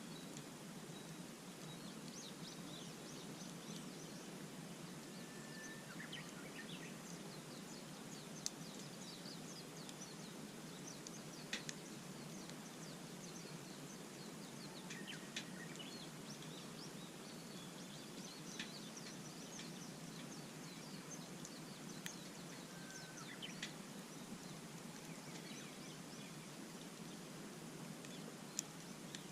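Wood campfire crackling with a sharp pop every few seconds, over a steady low hiss, while small birds chirp and twitter.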